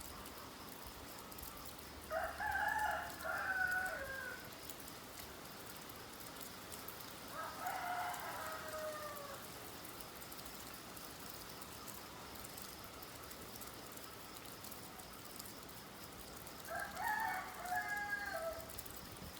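Rooster crowing three times, each crow about two seconds long and falling in pitch at the end, over a steady hiss of rain.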